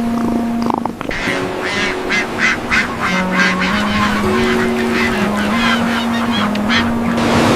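Ducks quacking rapidly, about three calls a second, over soft background music with held notes.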